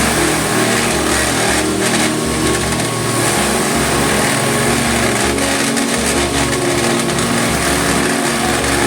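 Wood shredder machine running steadily while it chips wood into sawdust.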